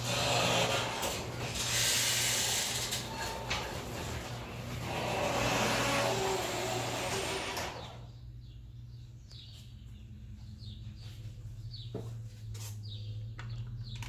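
Overhead garage door opener raising a sectional garage door, the motor and door running noisily with a steady low hum, then stopping suddenly about eight seconds in. After that, birds chirp outside through the open door over the continuing hum.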